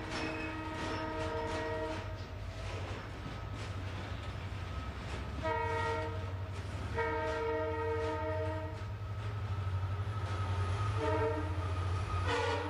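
Train horn sounding in repeated blasts of several steady notes at once: a long blast, a short one, another long one, then short ones near the end, over the steady low rumble of the moving freight train.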